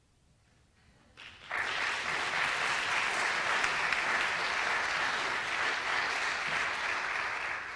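Audience applauding. It starts about a second and a half in, holds steady, and begins to die away at the end.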